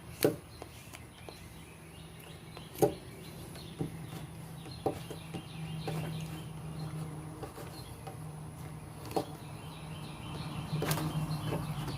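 TOPS Bull Trout fixed-blade knife with a 154CM steel blade cutting through material in a cutting test: sharp snaps and knocks at irregular intervals, about one a second, over a steady low hum.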